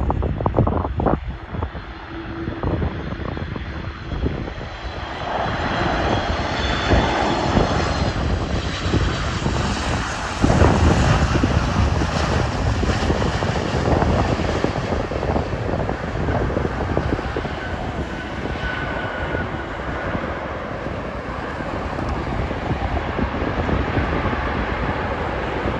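Jet noise from a Boeing 737 MAX 8 airliner's CFM LEAP-1B turbofans as it passes on final approach and lands. The noise builds with a high whine and jumps louder about ten seconds in, then stays steady. Wind buffets the microphone in the first couple of seconds.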